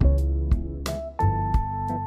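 Background music: keyboard and bass over a steady drum beat.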